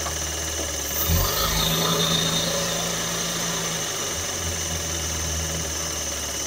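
2016 Audi S4's supercharged 3.0-litre V6, with a stage 1 tune and an aftermarket intake, running steadily with a low hum and a constant high whine above it. The low hum shifts briefly about a second in.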